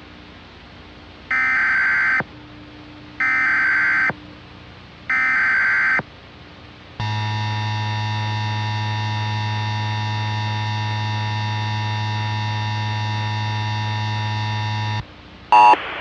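Emergency Alert System SAME header: three short screeching digital data bursts about a second apart. Then a steady, low, harsh attention tone holds for about eight seconds and cuts off, followed by a short blip near the end.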